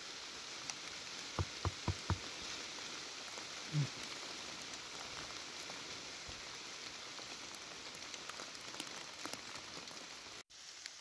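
Steady rain falling in the forest. About a second and a half in there is a quick run of four soft knocks, and a little later a single dull thump.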